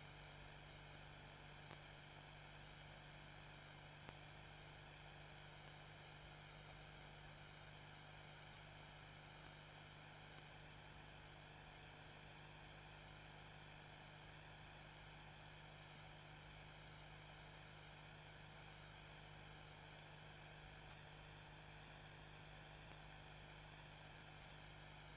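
Faint steady electronic hiss with a thin high whine and a low hum, unchanging throughout.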